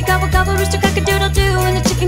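Upbeat children's song music with a steady beat.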